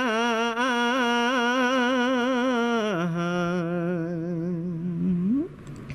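A monk's voice singing a drawn-out line of a Khmer Buddhist sermon in melismatic chant. He holds one note with heavy vibrato, steps down to a lower held note about three seconds in, and slides up in pitch near the end.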